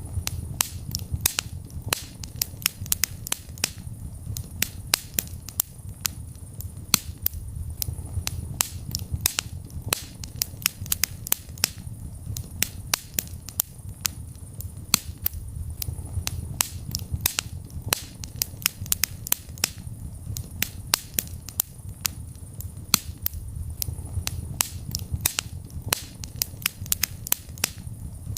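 Wood fire crackling in a fireplace: sharp, irregular pops and snaps several times a second over the low rumble of the flames, which swells and eases.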